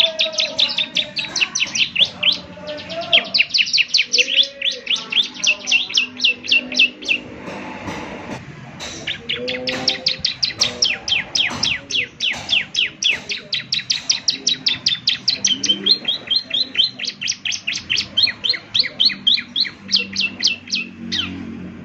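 Bar-winged prinia (ciblek) singing: long rapid runs of sharp, down-slurred chip notes, several a second, with a brief pause in the middle.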